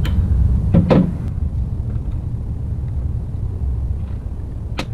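Steady low rumble with a few sharp clicks and knocks from the steel clutch pedal parts (bolt sleeve and bushings) being handled: one at the start, one about a second in, one near the end.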